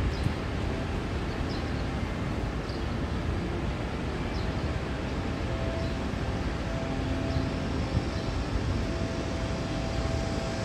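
Train running at a station: a steady rumble with faint whining tones that come and go.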